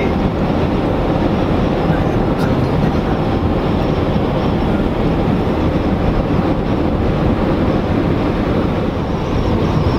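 Steady road noise inside a car's cabin cruising at highway speed, an even drone of tyres and engine.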